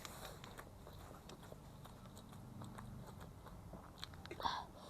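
Close-up mouth sounds of a person chewing food, with small wet clicks and light crunches, and a short breathy sound near the end.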